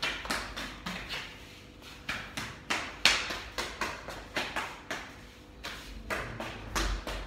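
Irregular knocks and taps on a tiled floor: a toddler's running footsteps and shoes being picked up and set down. One sharper knock about three seconds in.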